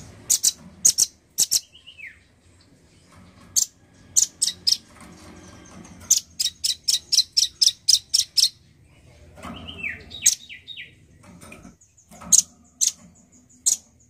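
Male velvet-fronted nuthatch (rambatan) calling with sharp, high chips. The chips come singly and in pairs, with a fast run of about a dozen in the middle and a few notes that fall in pitch.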